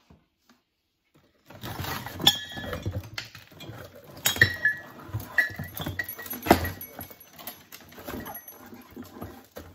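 Items being rummaged and pulled out of a cardboard box packed with tangled Christmas string lights and plastic bulbs: irregular rustling and clattering with clinks and several sharp knocks as a wicker basket is lifted out. It starts after about a second and a half of near silence.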